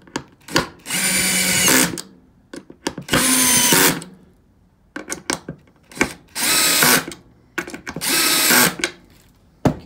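Dewalt 12V Xtreme cordless screwdriver driving four small screws into wood, one after another. Each run lasts about a second, with a few short clicks of handling between runs.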